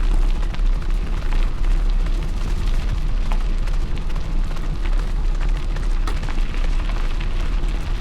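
Constant wind buffeting on the microphone of a dog-drawn bike moving along a trail. Scattered clicks and rattles from the bike and trail run through it.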